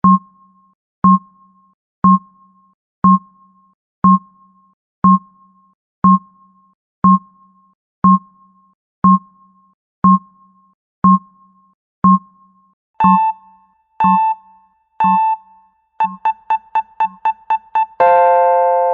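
Countdown timer sound effect: a short electronic tick once every second, then three longer beeps a second apart, then quick beeps about four a second. Near the end, as the count reaches zero, an electronic alarm chime sounds and starts to fade.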